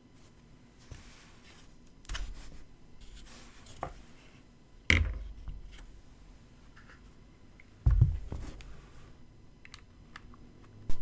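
Mechanical keyboard sounds: a few separate sharp clacks and heavier thuds, with faint scraping and rustling between them rather than a steady run of typing.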